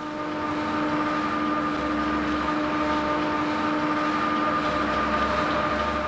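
Ice-making plant machinery running steadily: an even mechanical drone with several held tones. It swells in over the first second, then stays level.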